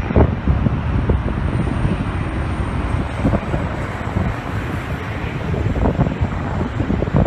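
Gusty wind buffeting the microphone over a steady rumble from the jet engines of an approaching Airbus A380 on final approach.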